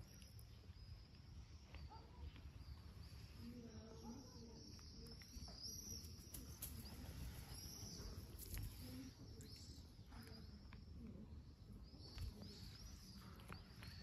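Near silence: faint outdoor ambience of scattered high bird chirps over a low rumble.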